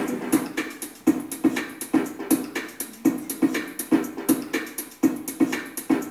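Electronic music loop played through loudspeakers as tracks are mixed live: a steady drum-machine beat of about two to three hits a second, with crisp high strokes over a pulsing mid-pitched sample.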